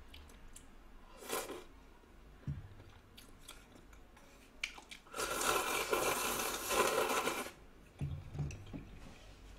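A person eating ramen noodles: quiet chewing and small clicks, then one long slurp of noodles lasting about two and a half seconds, around the middle.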